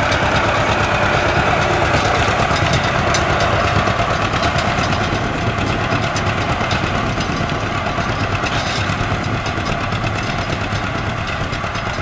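Vintage John Deere two-cylinder tractor engine chugging steadily under load while pulling a plow through sod, an even, continuous run of pulses.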